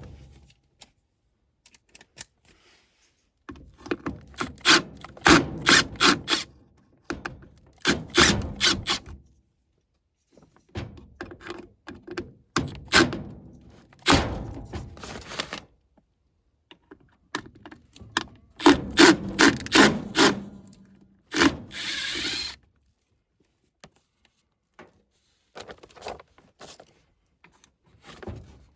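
Hand-tool work on a gas furnace's parts: several bursts of rapid clicking, rubbing and scraping as screws are loosened and wires pulled free, with a brief hiss after the last burst.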